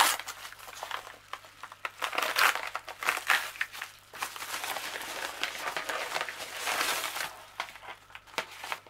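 Plastic padded mailing bag being pulled open and handled, a dense crinkling with many sharp crackles and rustles, including a longer continuous stretch of rustling from about four to seven seconds in.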